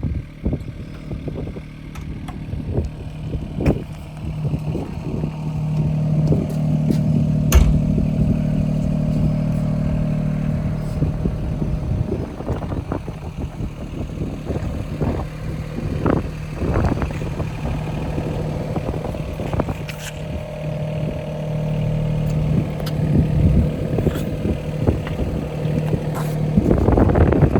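Yanmar SV15VT mini excavator's small diesel engine running, swelling louder twice as it comes under hydraulic load, with scattered clanks and knocks from the working machine.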